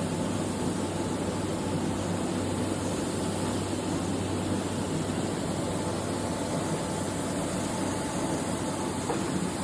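A machine running steadily with an even, unchanging hum.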